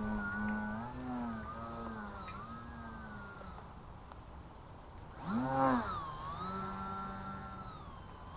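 Small electric RC plane in flight: its brushless outrunner motor and propeller give a buzzing whine whose pitch wavers with the throttle. About five seconds in it swells louder and higher, then drops back.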